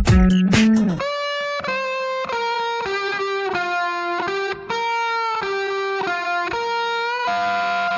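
Instrumental background music. The beat drops out about a second in, leaving a solo guitar melody of single held notes that step up and down in pitch.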